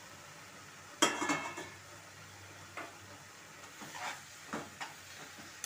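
A metal spatula strikes a kadai with a sharp ringing clang about a second in, then scrapes and clinks against the pan while stirring grated carrot and leafy greens. A faint steady sizzle of the vegetables frying runs underneath.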